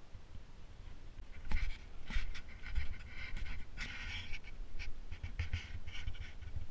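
Someone walking along a road shoulder with a heavy backpack, breathing hard in short puffs with steps in between, starting about a second and a half in. Wind rumbles on the microphone underneath.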